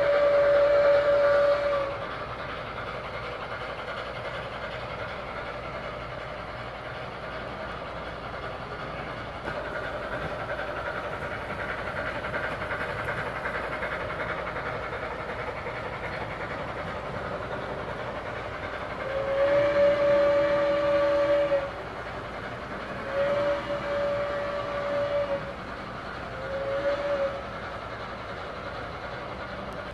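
Soundtraxx sound decoder in an O-scale model of Northern Pacific Q-3 steam locomotive 2156 sounding its steam whistle. One blast ends about two seconds in, and two long blasts and a short one follow near the end, with the model train's steady running sound in between.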